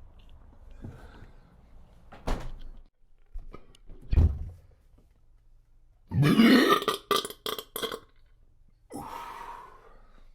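A man burping. A short, low burp comes about four seconds in. A loud burp follows at about six seconds, lasting nearly a second, then a few sharp clicks and a softer, breathy sound near the end.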